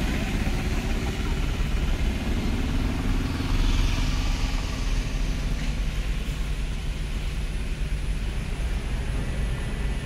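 Steady rumble of motor vehicles and engine noise, with a swell about four seconds in.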